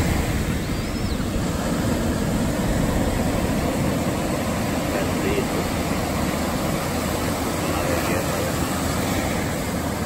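Ocean surf breaking and washing up a sandy beach: a steady rushing noise with a low rumble.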